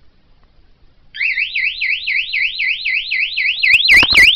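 Wireless burglar alarm siren going off about a second in, a loud warbling tone sweeping rapidly up and down about four times a second; about three and a half seconds in it is joined by sharp, loud pulses at a similar rate. It was set off by the PIR motion sensor detecting movement even though the system was not armed.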